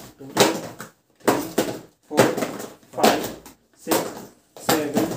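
A man counting aloud in Hindi, one number about every second, as small cardboard product boxes are handled.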